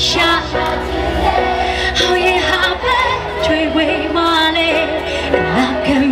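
A woman singing live into a handheld microphone over loud amplified backing music, holding some long notes with a waver.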